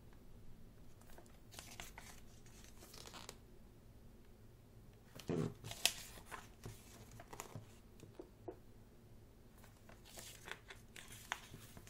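Pages of a thick photo book being turned: a series of short, soft paper swishes and rustles, with a louder flip about halfway through.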